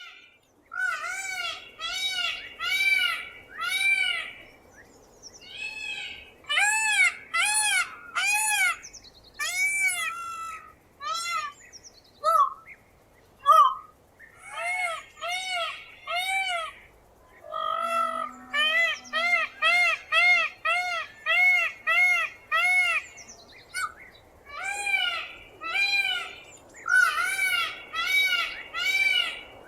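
Peacock screaming: loud, nasal wailing calls, each rising then falling in pitch. They come in runs of four to nine at about two a second, with short pauses between runs.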